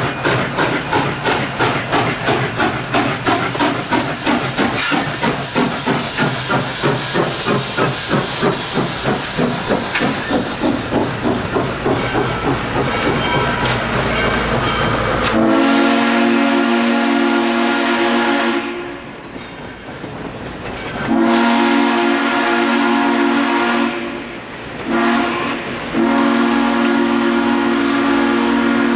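Southern 2-8-0 steam locomotive #630 passing close with a fast, even rhythmic beat, about three a second. About halfway through its steam whistle sounds the grade-crossing signal: two long blasts, a short one, then a long one.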